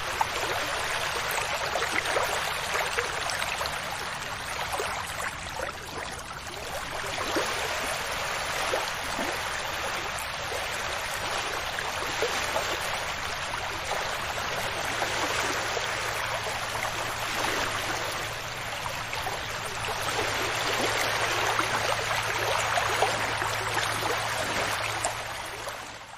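Ocean waves washing onto a beach: a continuous hiss of surf with fizzing foam that slowly swells and eases.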